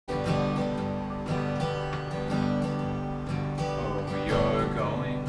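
Acoustic guitar strummed in a steady rhythm, about three strums a second: the chord intro to a country-style song before the singing begins.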